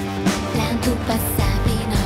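Pop song playing, with a steady beat.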